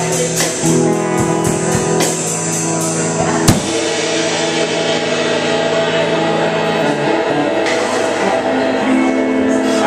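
Small rock band playing live: electric guitar chords over bass and drums. Quick, even drum hits run through the first few seconds, with one sharp loud hit about three and a half seconds in, then mostly held chords.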